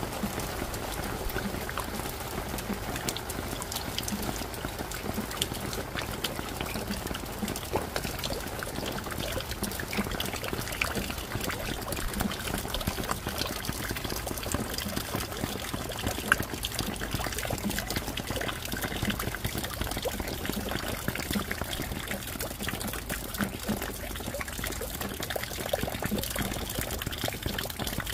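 Steady rain falling, with many separate drops striking close by and water running off.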